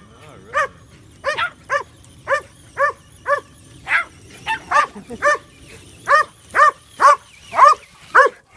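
A dog barking repeatedly in short, sharp barks, about two a second, getting louder toward the end.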